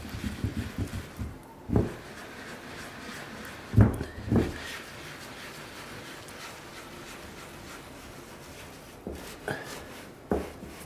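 A damp sponge scrubbed in small circles over grouted mosaic tiles, washing off the excess grout once it has partly set. Quick rubbing strokes come first, then a few dull knocks about two and four seconds in and a couple more near the end.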